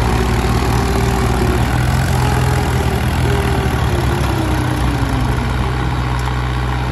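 Mahindra tractor's diesel engine running hard under heavy load while hauling a loaded trolley up out of mud. About halfway through, its pitch sags as the engine lugs down.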